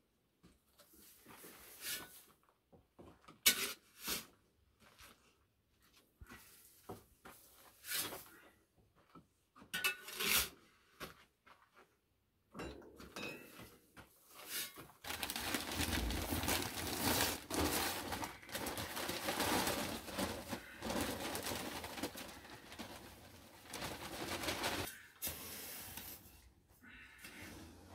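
Scattered knocks and clicks from hands-on work, then, after a brief pause about halfway, a long stretch of dense scraping noise that thins out near the end.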